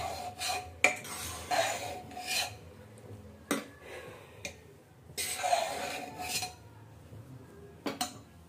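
Metal spoon stirring cooked grated carrots in a pressure cooker pot, scraping against the metal sides in strokes about a second long. A few sharp knocks come as the spoon hits the pot.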